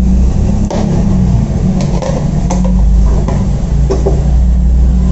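Steady low machine hum with a few light clicks.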